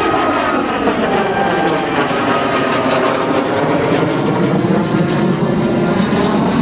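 Aero L-39 Albatros jet trainer's single turbofan engine, loud and steady as it flies past overhead. Its sound has a sweeping, phasing tone that slides down and then back up.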